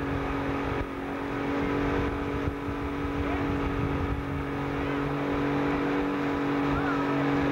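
Motorboat engine running at a steady speed, a constant drone, with wind and rushing water noise.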